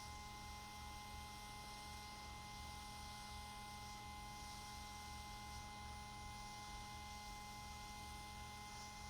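Faint steady electrical hum with a few thin, constant high whining tones and a light hiss, unchanging throughout.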